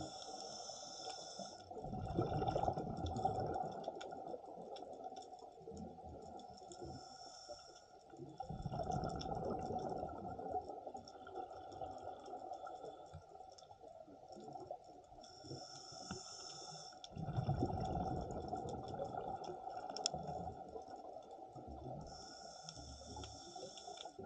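Scuba diver breathing through a regulator underwater: a short hiss on each inhalation, then a longer burst of bubbling as the breath is exhaled. The cycle repeats about every seven to eight seconds, about three full breaths.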